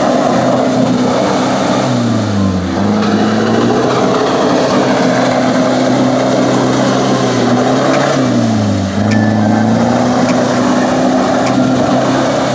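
Nissan Terrano I's 2.7 four-cylinder turbodiesel engine working hard as the SUV churns through deep mud, over the splash and slop of spinning tyres. The revs sag and climb back twice, about two seconds in and again about eight seconds in.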